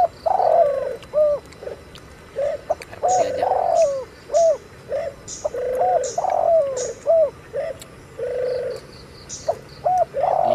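Doves cooing over and over, a steady run of short arched coos, with short high chirps from small birds mixed in.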